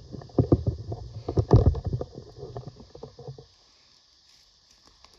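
Irregular soft knocks and rustling close to the microphone for about three and a half seconds, then it goes quiet.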